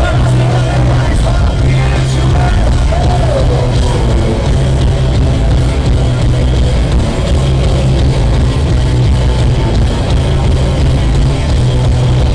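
A rock band playing live through a stadium PA: electric guitars, bass and drums, loud and continuous, with a held low bass note.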